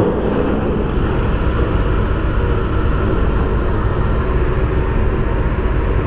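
Steady low engine rumble mixed with road and traffic noise.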